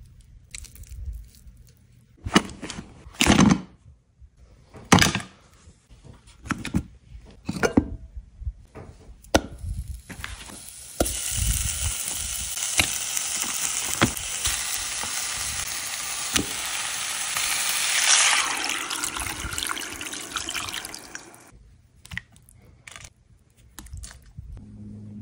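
Scattered knocks and taps, then water pouring steadily into a pot of raw beef chunks for about ten seconds, stopping sharply about three seconds before the end.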